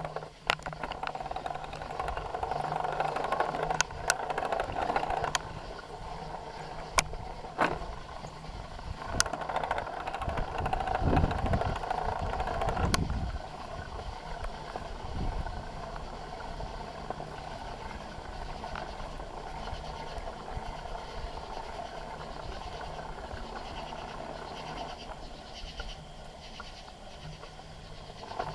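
Bicycle riding noise picked up by a handlebar-mounted camera: tyres rolling and the frame rattling, with sharp knocks from bumps in the first half and a deep rumble a little before the middle, then steadier rolling noise.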